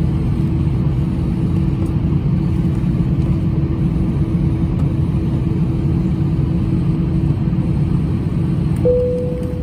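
Steady low rumble inside an Airbus A321-211 cabin as the airliner taxis, with a constant hum under it. Near the end a single clear tone sounds briefly.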